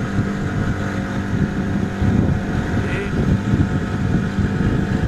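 Motorboat engine running steadily with the boat under way: an even drone over the rush of water.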